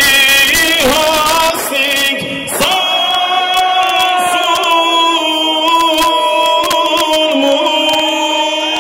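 A male singer sings live into a handheld microphone over loud amplified music, holding long notes with a waver in the pitch.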